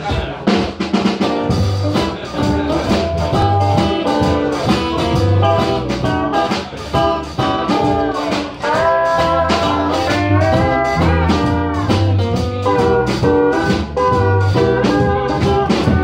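A small acoustic band playing live: strummed acoustic guitar with the Ibanez PCBE-12 acoustic bass guitar played through a Fender Rumble 100 bass amp, and a lead melody line that slides between held notes.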